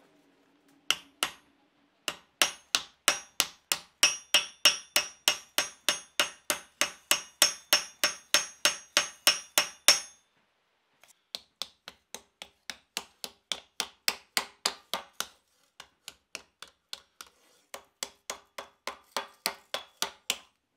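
Hand hammer striking red-hot steel: a steady run of ringing blows about four a second, then after a brief pause a quieter series of blows as the hot shoehorn blade is dished into the groove of a swage block.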